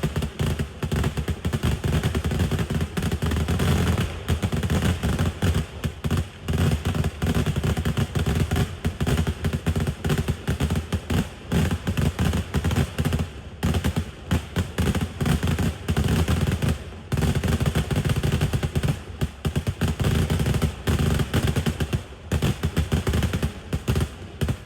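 Kerala temple fireworks (vedikkettu): a dense, rapid barrage of firecracker explosions going off like machine-gun fire, with a few brief gaps.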